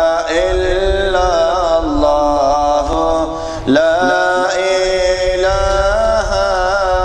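A man chanting an Arabic devotional supplication (munajat) in a melodic style, holding long, ornamented notes. A short pause for breath comes about halfway, then a new phrase begins.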